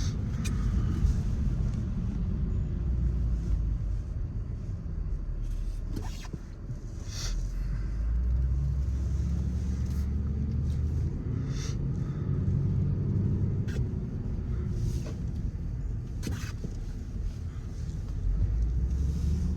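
Car engine and road rumble inside a moving car, the engine note slowly rising and falling, with a few scattered sharp clicks.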